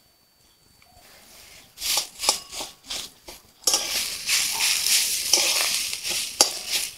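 A metal spatula scraping and stirring boiled potato and grated carrot in a hot metal kadai, in short strokes from about two seconds in. A steady sizzle of frying joins about halfway through, with a sharp click near the end.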